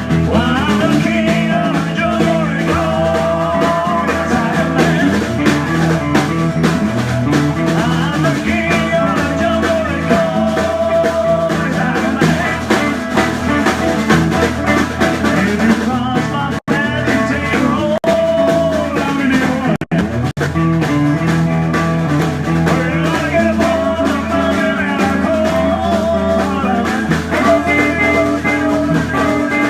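Live band playing a blues-flavoured rock number at full volume. The sound cuts out for an instant twice, about halfway through and again a few seconds later.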